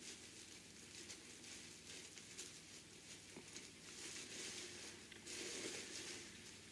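Soft rustling and crinkling of cotton fabric layered with Insul-Bright insulated lining as hands handle and smooth it, swelling louder about five seconds in.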